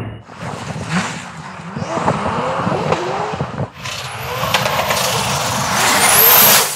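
Turbocharged V8 of a drift-built BMW E46 M3 revving up and down as the car drifts, mixed with tyre and loose-gravel noise. Near the end a high whistle rises and falls, and then the sound cuts off suddenly.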